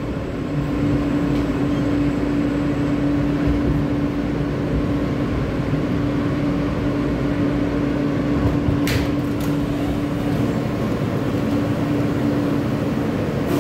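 Inside an R160 subway car as it slows into a station and stops: steady rumble with a constant hum, and a brief hiss about nine seconds in.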